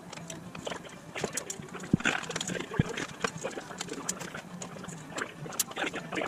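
Manual sheet-metal brake folding a strip of stainless sheet: the clamp and bending leaf clank and click as the leaf is swung up, with two sharp metal knocks about two and three seconds in.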